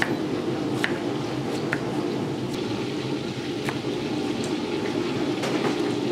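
Kitchen knife cutting carrot into strips on a wooden chopping board, the blade knocking the board several times at uneven intervals, over a steady low rushing noise.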